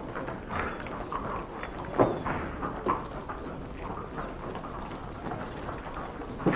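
Irregular clopping footfalls on stone paving, with one sharper knock about two seconds in.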